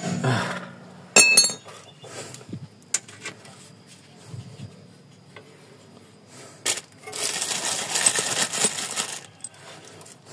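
A sharp metal clink with a short ring about a second in, as the new bolt and nut are worked into the steel strut bracket of the Daihatsu Taruna's front suspension. A few small clicks follow, then a couple of seconds of scraping, rattling handling noise.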